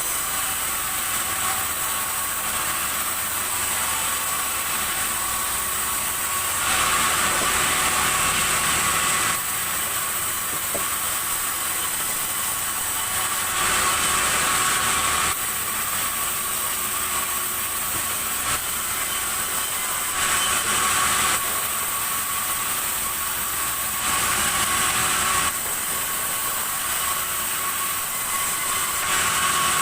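Sawmill saw running steadily with a high, hissing whine. It grows louder in five stretches of one to three seconds, the blade cutting through red timber.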